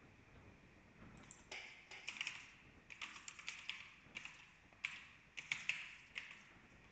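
Computer keyboard typing: a faint run of irregular keystrokes starting about a second in, as a short terminal command is typed.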